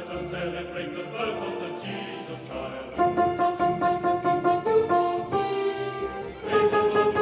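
Choral rehearsal track with piano accompaniment. Men's voices sing a unison verse line over the piano, then about three seconds in the women's voices enter louder on repeated notes.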